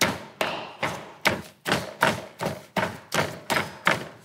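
A pestle pounds steamed glutinous rice in a wooden bowl: a steady run of thuds about three a second. This is the mochi-pounding stage, which goes on until the rice grains disappear into a smooth dough.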